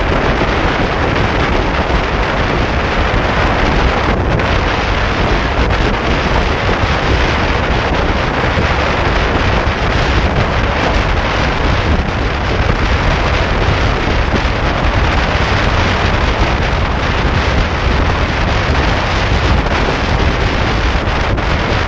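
Loud, steady rush of wind buffeting a motorcycle-mounted action camera's microphone while a Yamaha R15 rides at highway speed.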